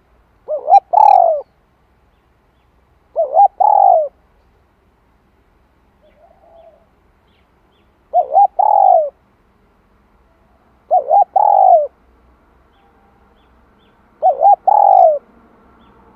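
Spotted dove cooing: five phrases about three seconds apart, each two quick short notes followed by a longer falling note.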